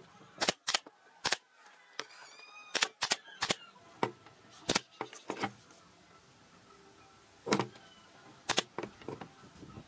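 A pneumatic brad nailer firing and small wooden strips knocking on the workbench: about a dozen sharp clicks and knocks at irregular spacing.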